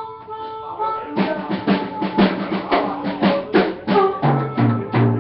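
Rock drum kit playing a fast fill of rapid strokes, starting about a second in and moving down to low tom hits at the end. A held note rings under the first second before the drums come in.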